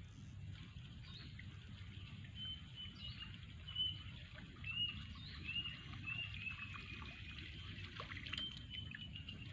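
Bird calls: a series of short, high whistled notes, some dipping slightly in pitch, repeating about every half second over a steady low rumble.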